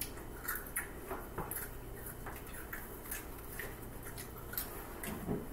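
Scattered soft clicks and rustles of eating, with chewing and food being handled in the hands, over a faint steady low hum.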